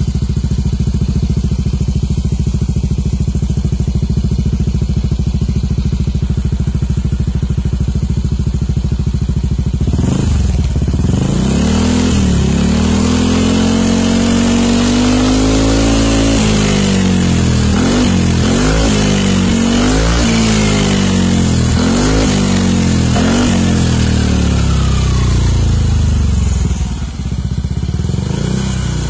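Yamaha NMAX scooter's single-cylinder engine breathing through an Arrow racing muffler made for the Kawasaki Z800: idling steadily for about ten seconds, then revved up and held, then blipped about six times in quick succession, settling back to idle near the end.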